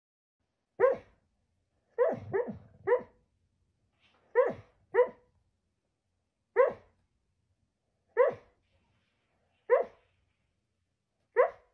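A dog barking in its sleep while dreaming: about ten short woofs, each dropping in pitch at the end, some in quick pairs, the rest one to two seconds apart.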